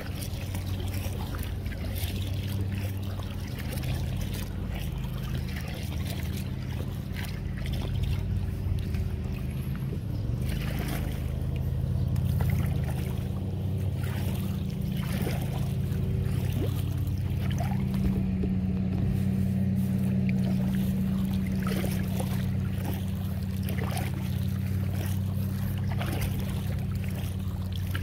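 Kayak paddle strokes dipping and dripping water beside an inflatable kayak, irregular small splashes, over a steady low hum.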